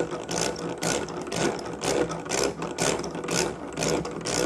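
Kilner manual butter churner being hand-cranked at a steady pace: its gears whir and clatter about twice a second as the paddles turn through the cream in the glass jar. The cream is still liquid, at the early stage of churning.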